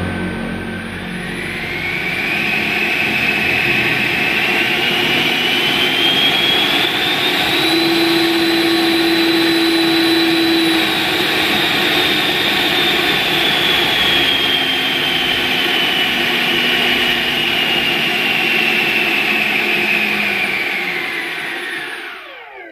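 A 70 mm 12-blade electric ducted fan in a Super Habu RC jet, throttled up on the ground: a loud whine climbs in pitch over the first several seconds, holds at full throttle, then eases slowly back down. Near the end it spins down and fades out.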